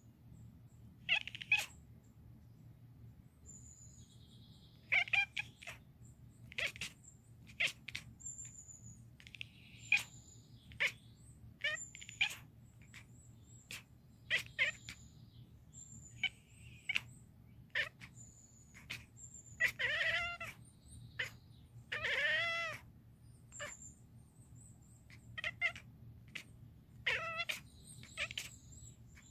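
Scottish Fold kitten chattering at birds: a long run of quick clicking, chirping chatters, with two longer drawn-out chirrups about 20 and 22 seconds in. The sound shows a cat fixed on prey it cannot reach.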